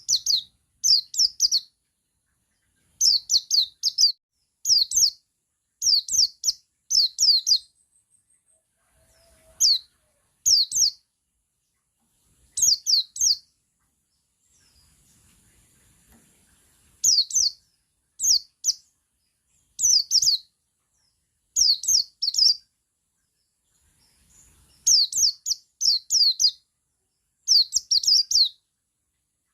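Male white-eye (the 'pleci buxtoni' form) singing its 'ngalas' song: short, high bursts of a few rapid downward-sweeping notes, repeated about once a second with a few longer pauses.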